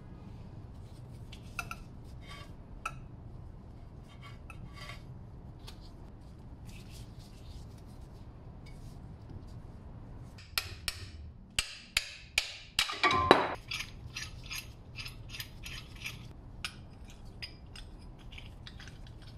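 A stuck outer brake pad being worked out of a front disc-brake caliper by hand: a run of sharp metallic clicks and knocks about halfway through, the loudest a short rattle and scrape as the pad comes free.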